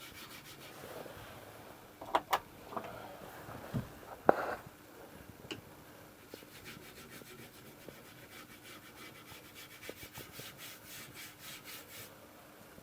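A wooden stick wet with baking-soda solution knocking and rubbing on a wooden board, spreading the solution so the board soaks before high-voltage burning. A few sharp taps come first, then a run of quick, even strokes in the second half, all fairly quiet.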